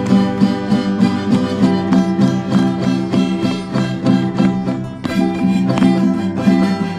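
Traditional string-band music, violin with guitar, playing a tune over a steady beat.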